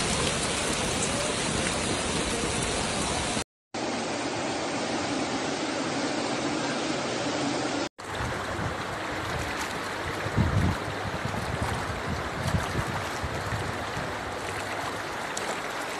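Heavy rain and fast-flowing floodwater: a steady rushing hiss of water through several clips joined together, cutting out briefly twice. In the last part, brown floodwater runs down a street, with a couple of low thumps.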